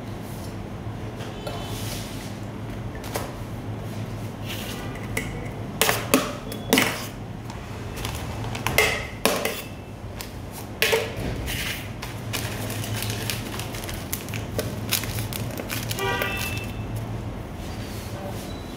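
Kitchen handling sounds: scattered knocks and clatters of a steel pot and utensils being moved on a counter, with a brief metallic ringing near the end, over a steady low hum.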